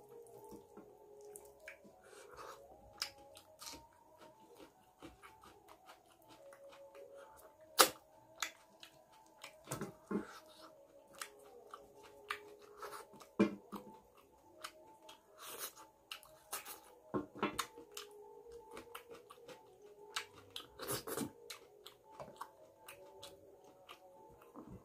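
Close-up chewing and lip-smacking of a person eating curry and rice by hand, with scattered sharp clicks and taps of fingers on a stainless steel plate. The loudest click comes about eight seconds in.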